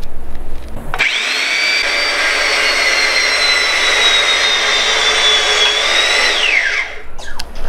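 Motor of a powered hydraulic crimping tool whining steadily for about five seconds, starting about a second in, its pitch sinking slowly as the dies press a copper lug onto heavy cable, then dropping away quickly as it winds down near the end.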